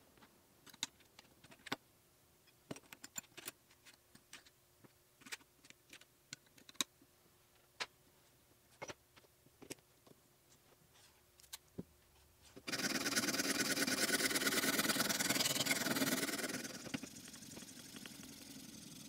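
Scattered clicks and knocks as the metal and wood parts of a knife-sharpening jig are handled and set. About 13 s in, a sharpening stone on the jig's guide rod starts rasping steadily against the knife blade. The rasp softens a few seconds later.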